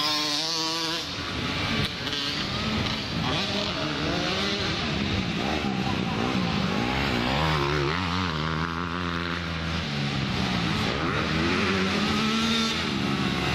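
Several small motocross bike engines revving hard, their pitch rising and falling and overlapping as the bikes accelerate, shift and back off around the track.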